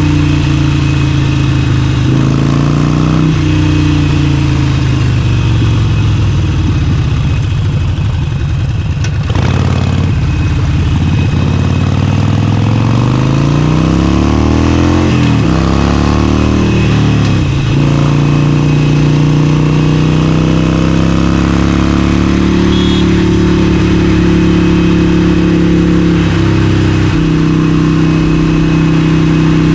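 Harley-Davidson Forty-Eight's 1200 cc V-twin engine running under way. Its pitch sags about nine seconds in, rises and falls between about fourteen and seventeen seconds, then holds steady with a brief dip near twenty-seven seconds.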